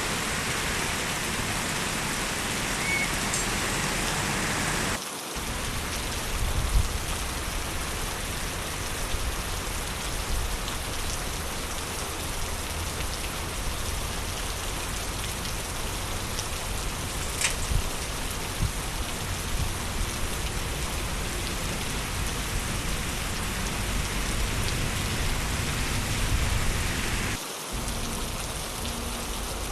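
Steady rain falling on a city street, an even hiss with a low rumble underneath. The sound changes abruptly about five seconds in and again near the end.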